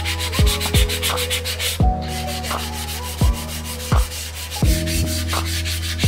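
Sandpaper rubbed by hand back and forth along a metal bicycle frame tube, a quick repeated rasping. It sits under lofi hip-hop music whose deep kick drums are the loudest sounds.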